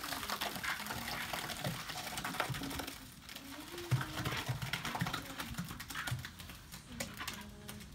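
Wet pool-finish plaster mix sliding and pouring out of a tipped wheelbarrow into an empty pool: a wet, crackly patter with many small clicks.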